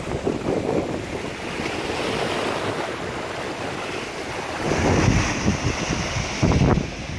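Sea surf washing over black volcanic shore rocks, a continuous rushing wash. Wind buffets the microphone, with stronger rumbling gusts about five seconds in and again near the end.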